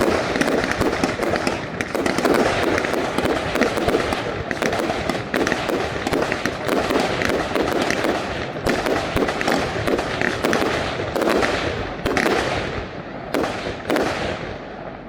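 Fireworks display: a dense, continuous barrage of bangs and crackling bursts, thinning to a few separate bangs in the last couple of seconds.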